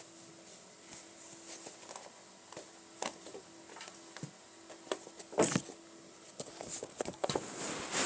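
Kittens' paws pattering and scuffing on carpet as they play with a yarn rope, in scattered soft taps. There is a loud bump about five and a half seconds in and a louder burst of rustling scuffles near the end.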